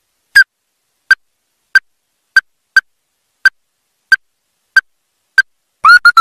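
Ruddy-breasted crake calling: a series of short, sharp single notes, about three every two seconds. Near the end they break into a quick run of notes.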